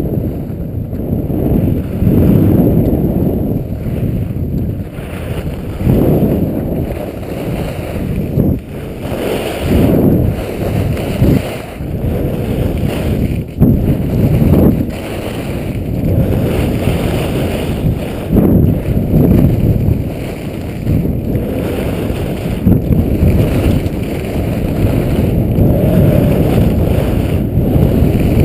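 Wind rushing over the microphone of a helmet-mounted camera while skiing fast down a groomed run, a loud low rumble that swells and eases every second or two, with a faint hiss of skis on snow beneath it.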